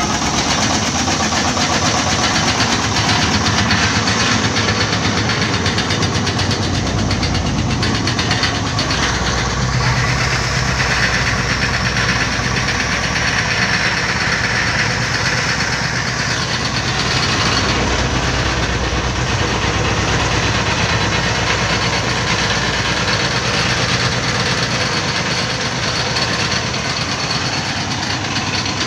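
Turbocharged 35 hp diesel engine of a custom-built công nông farm truck, running steadily and loudly.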